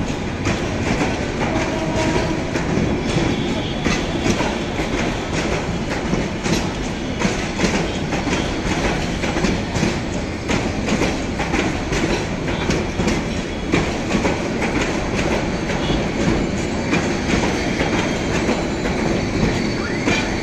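Bangladesh Railway intercity passenger coaches rolling past, a steady rumble with the wheels clicking over the rail joints.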